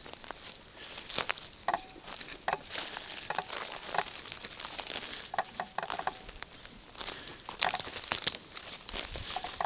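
Horses grazing close by: irregular crunching and tearing as they crop and chew dry grass, with rustling as they step through it.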